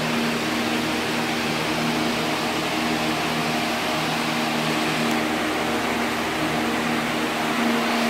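Steady machine hum, a running motor with a few fixed tones under an even hiss, unchanging throughout.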